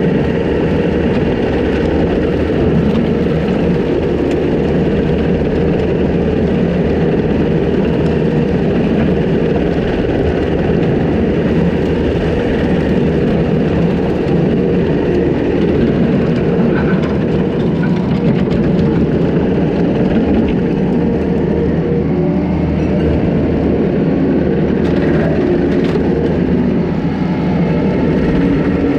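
Takeuchi TL250 compact track loader's diesel engine running steadily under load, driving a hydraulic brush cutter through wet grass and brush.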